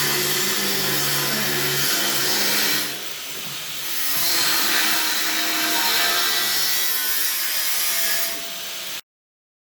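Amplang cracker cooking machine running, its motor-driven stirrer working in the wok with a steady scraping, rubbing noise. The noise dips for about a second around three seconds in, and cuts off abruptly near the end.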